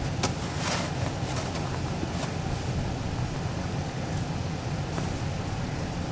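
Steady low rumble, like a running engine, mixed with wind noise on the microphone, with a few faint clicks.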